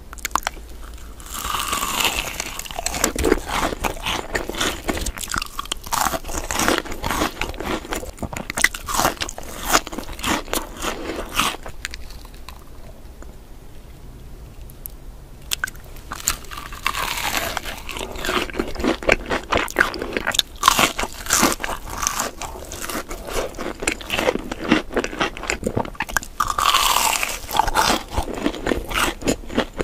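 Close-up crunchy biting and chewing of Hot Cheetos-crusted fried onion rings and fried sticks, a dense run of crackling crunches with a quieter lull about halfway through.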